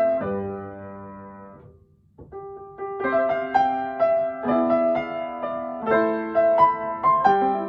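Yamaha upright piano played solo. A chord rings and fades away, there is a short pause about two seconds in, then soft notes resume and build to fuller chords from about three seconds in.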